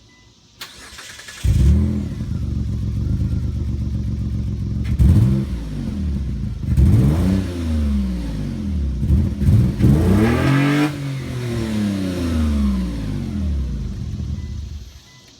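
2003 Mitsubishi Eclipse GT's 3.0 V6 cranking briefly, catching about a second and a half in, then revved up and down several times through a 3-inch exhaust. The engine note cuts off near the end.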